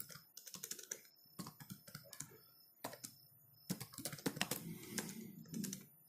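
Computer keyboard being typed on: irregular runs of key clicks, busiest in the second half.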